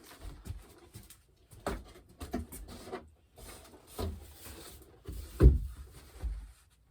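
Cardboard box and packaging being handled and pulled open: irregular rustling with several knocks, the loudest a thud near the end.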